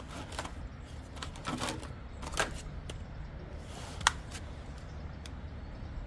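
Handling noises from hands moving things on a wooden table: soft rustles and a few scattered sharp clicks, the sharpest about four seconds in, over a steady low hum.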